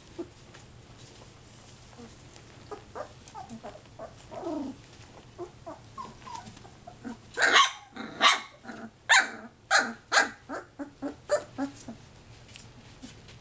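Young puppies yipping: a few soft, short calls at first, then from about seven seconds in a run of loud, sharp puppy barks, about two a second, that fades out near the end.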